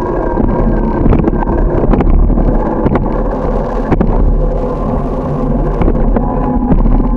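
Wind buffeting the microphone over the steady road rumble of a moving bicycle, with a few sharp rattling knocks from the bike going over bumps.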